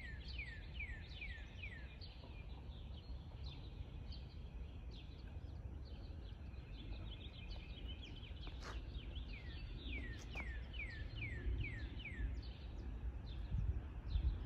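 A songbird singing runs of clear whistled notes, each sliding down in pitch, about three a second. One run comes at the start and another a little past the middle, over a steady low outdoor rumble, with two faint clicks in between.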